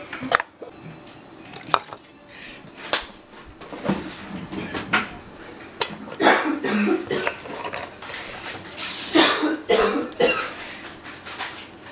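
Kitchen handling sounds: scattered sharp clicks and knocks of a bowl and utensils, with two longer bursts of noisier clatter and rustling about halfway through and near the end.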